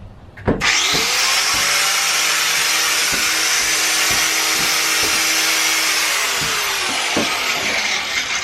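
Angle grinder switched on about half a second in, spinning up and cutting into a metal support beam in a van's wall with a loud, high hiss. Near the end it begins to spin down.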